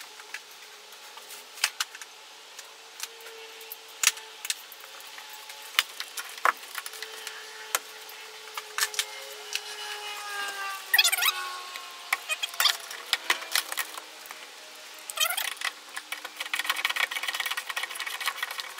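Ratchet and socket undoing the handbrake mounting bolts: scattered clicks and knocks as the tool is fitted and worked, then a fast, even run of ratchet clicks near the end.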